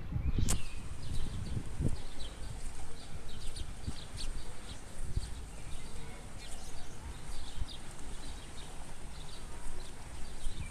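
Small birds chirping in short, irregular calls, over a low gusty rumble of wind on the microphone.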